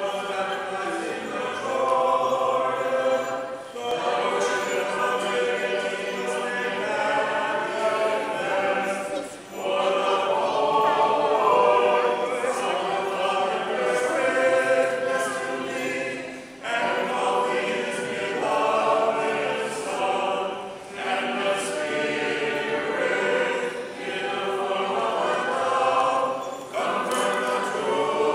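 A group of voices singing an Orthodox hymn a cappella, in phrases separated by brief pauses.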